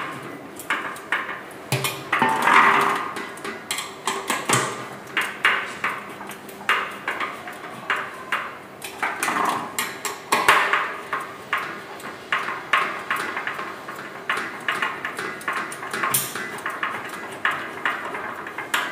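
Screwdriver clicking and scraping on the screws around the flange of a small cement mixer's metal drum as the screws joining the upper and lower drum halves are tightened, with irregular clicks and light metallic pings from the drum.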